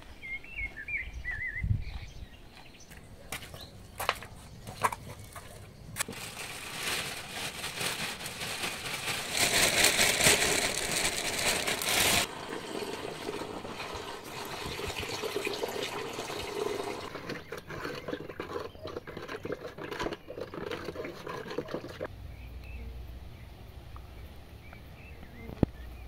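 A thin stream of water pouring from a plastic watering can into a plastic bucket, splashing steadily for many seconds and loudest for a few seconds in the middle. Birds chirp briefly at the start.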